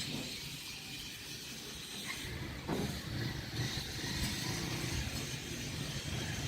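A running engine with a low rumble, louder from about two seconds in.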